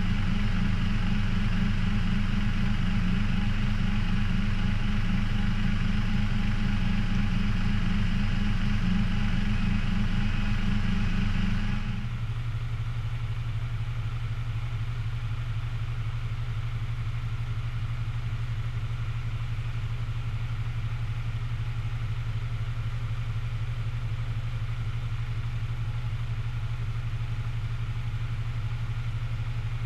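Diesel engine idling steadily. About twelve seconds in the sound drops abruptly to a quieter, lower, steadier hum.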